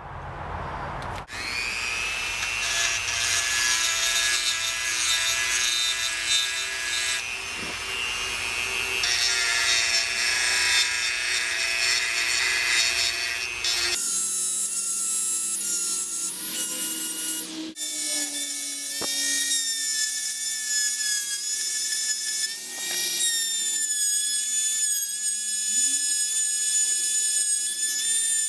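Dremel rotary tool with a carbide bit running at high speed, a high-pitched whine with a grinding rasp as the cutter works the metal rim of an anvil's hardy hole. It starts about a second in, and its sound changes abruptly about halfway through and again a few seconds later.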